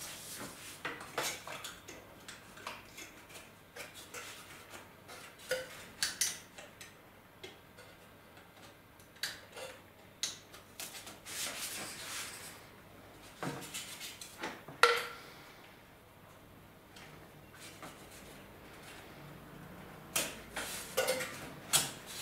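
Light, irregular clicks and taps of balsa wood strips being handled and set against a balsa wing frame on a cutting mat. There is a quieter stretch about two-thirds of the way in.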